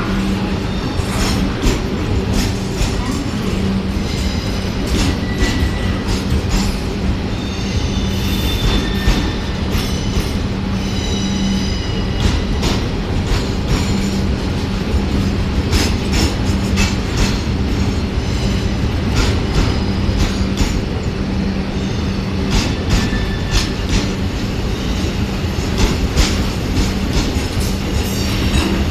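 Steel freight train rolling steadily past, its wheels clicking irregularly over rail joints under a continuous rumble and a steady low hum. Brief high wheel squeals come a few times in the first half.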